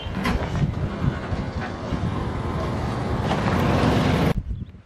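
Rumble of an approaching express train hauled by an electric locomotive, mixed with wind buffeting the microphone. It grows steadily louder, then cuts off abruptly near the end.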